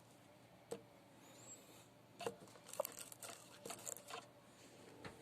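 Faint, scattered clicks and light knocks of small hard parts being handled, about half a dozen spread over a few seconds.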